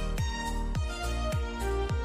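Background music with a steady beat: a low drum hit a little under twice a second under held tones.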